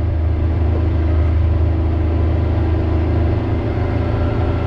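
Kawasaki Mule Pro FXR side-by-side's three-cylinder engine running while driving along a gravel track: a loud, steady low drone.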